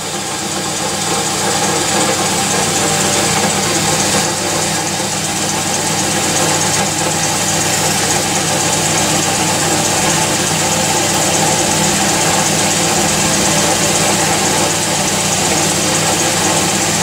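Milling machine running steadily, its drill bit boring a hole through a model engine frame into an aluminium carriage.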